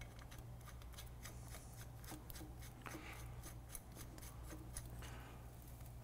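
Steel bearing cone being turned by hand onto the left-hand thread of a one-piece bicycle crank: a faint, quick run of small metallic ticks and scrapes, several a second, as the threads engage.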